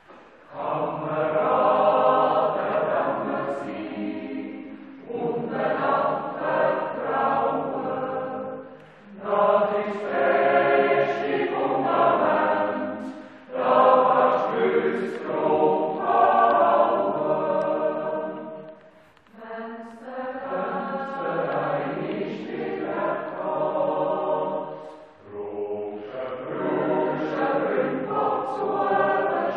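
Swiss yodel choir of men and women singing unaccompanied, in long phrases separated by brief breaks.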